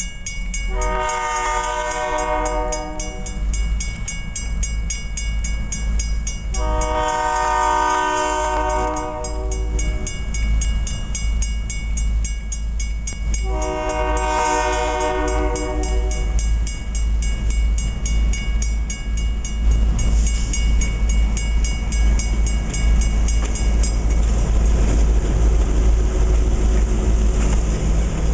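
Diesel locomotive air horn sounding three long blasts, several seconds apart, over the low rumble of the train's diesel engines. The engine rumble grows louder near the end as the locomotives pass close by.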